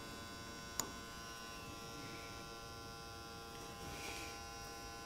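Metal lathe's electric motor running steadily, a low hum with a thin whine over it. One sharp click about a second in.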